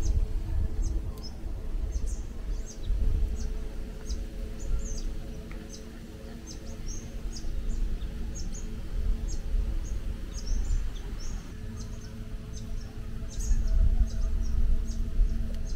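Small birds chirping over and over in short high calls, over a low gusty rumble of wind on the microphone. Soft, held music tones sit underneath.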